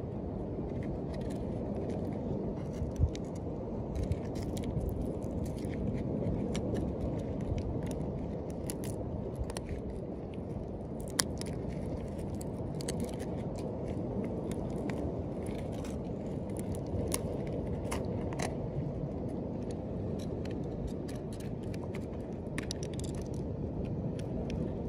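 A knife blade scraping moss and growth off a turtle's shell: scattered short scrapes and clicks, with a few sharper ticks, over a steady low rumble.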